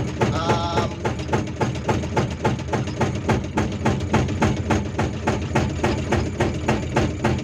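Hydraulic rock breaker on a Hyundai R480LC-9S excavator hammering in rapid, even blows, several a second, over the steady running of the diesel engine, heard from inside the operator's cab.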